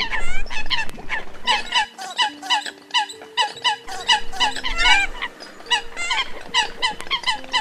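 Eurasian coots calling: a dense run of short, sharp calls, several a second and overlapping, some with a quick upward or downward bend in pitch.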